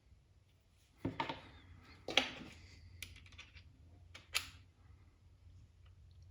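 A few sharp clicks and short rustles as the packaging and parts are handled, the loudest about two seconds in.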